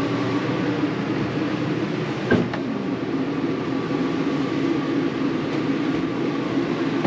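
A steady mechanical hum, low and even, with one short knock about two and a half seconds in.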